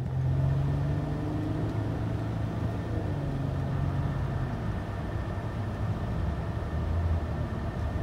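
Road and engine noise inside a moving car's cabin: a steady rush of tyre noise under a low engine hum that shifts slightly in pitch.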